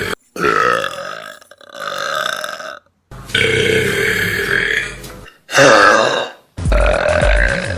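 Human burps: about five drawn-out belches one after another, each cut off abruptly. The loudest comes a little past the middle.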